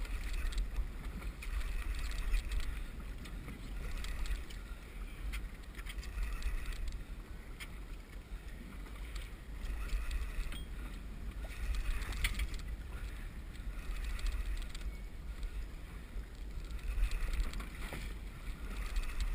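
Wind buffeting the microphone with a low rumble, and choppy sea water lapping and splashing against a small boat's hull, swelling and fading every second or two.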